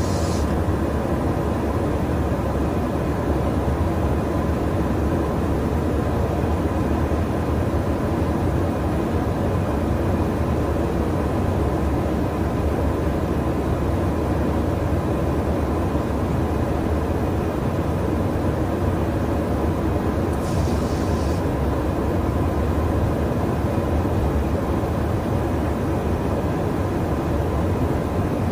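Steady drone of engine and airflow noise inside a KC-135 Stratotanker's boom operator station in flight, heavy in the low end, with a brief high hiss about three-quarters of the way through.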